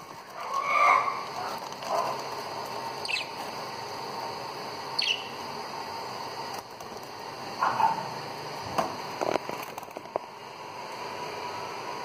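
Budgerigars giving scattered short chirps, the loudest about a second in, with a couple of brief high sharp calls among them, over a steady background hiss.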